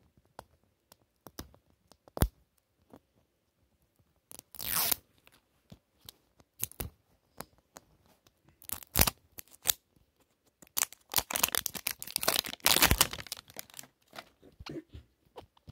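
Plastic wrapper being torn and peeled by hand off a Mini Brands capsule ball: scattered crackles, a short rip about five seconds in, and a longer burst of tearing and crinkling near the end.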